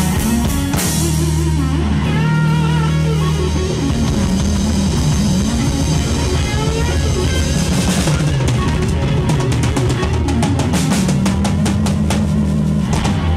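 Live rock band playing an instrumental passage: a Stratocaster-style electric guitar plays wavering, bent lead notes over bass and drum kit. In the second half the drums switch to fast, evenly spaced hits.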